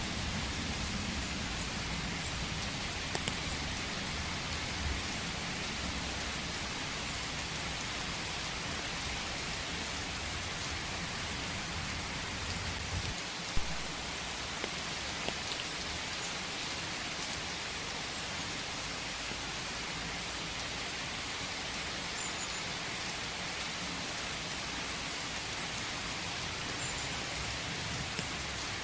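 Steady rain falling on a forest. A low rumble runs under it for the first half and stops suddenly about halfway through, followed by a single sharp tap.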